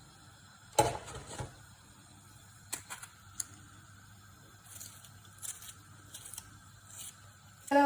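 A few scattered knocks and clicks over a low background, the loudest a sharp knock about a second in. Music with singing starts right at the end.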